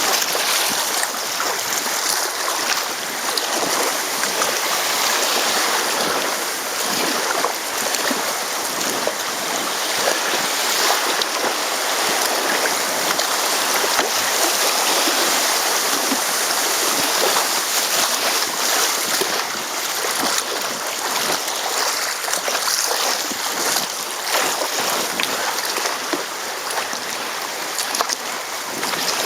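Steady rush of moving river water around a descent canoe on the current, with many small splashes.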